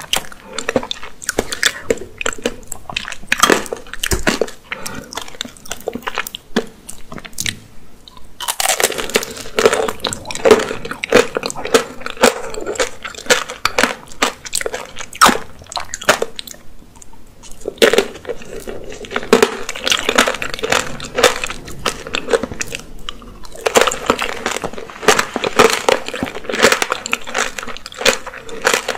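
Close-miked biting and chewing of apricot tanghulu: the hard sugar-candy shell cracking and crunching between the teeth. The crunching comes in several heavy bouts, with sparser crackles between them.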